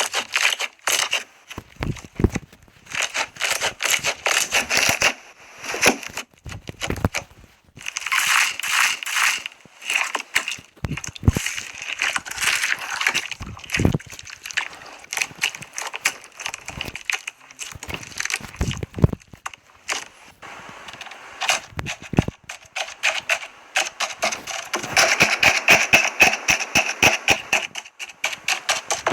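Slime being squeezed and pressed by hand, crackling and popping in quick runs of small clicks that come in bursts of a few seconds with short pauses between.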